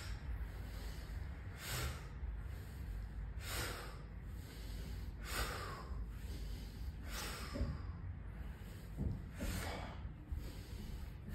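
A man's sharp breaths, forced out through the nose and mouth in rhythm with a bodyweight warm-up exercise, about one every two seconds.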